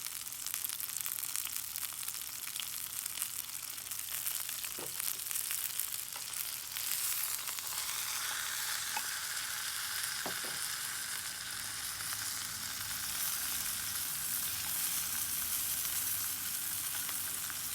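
Chicken cooking over a wood campfire: a steady sizzling and crackling hiss, with a few brief faint whistles.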